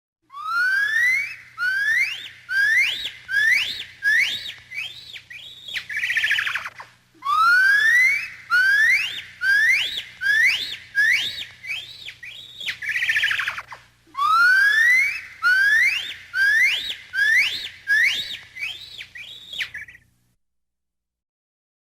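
Gibbon calling in loud, whistle-like rising whoops. There are three bouts: each opens with a long upward-sliding whoop, goes on with shorter, quicker rising notes, and ends in a harsher note. The calls stop about 20 seconds in.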